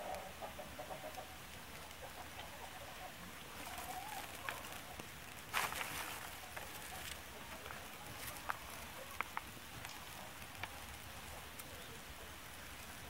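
A small tinder fire of dried rotten wood and wood shavings giving scattered sharp crackles, with dry shavings rustling as they are handled. There is a loud crunching rustle about five and a half seconds in.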